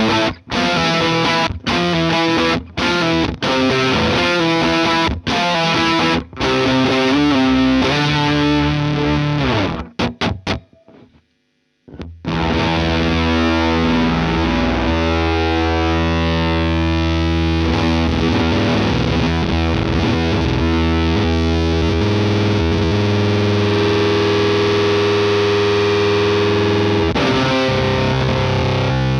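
Electric guitar played through an EarthQuaker Devices Bit Commander monophonic octave-fuzz synth pedal into a Vox AC30 valve amp, giving a thick, distorted synth-like tone. The first ten seconds or so are short choppy notes, then the sound stops briefly near the middle and comes back as long sustained notes.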